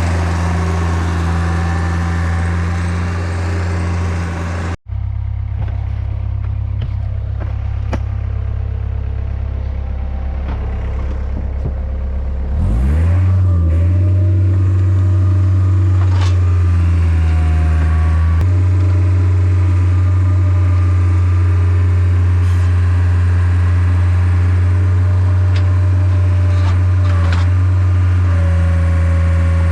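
Engine of a log-loading machine running steadily, then revving up about twelve seconds in and holding at the higher speed, with a few scattered knocks.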